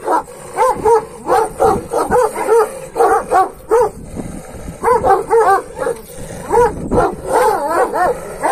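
Kangal shepherd dogs giving high, yelping whine-barks in quick bursts of two to four, each call rising and falling in pitch, with short pauses between bursts.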